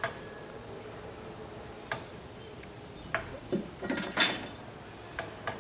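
Irregular light knocks and clinks, with a louder clatter about four seconds in.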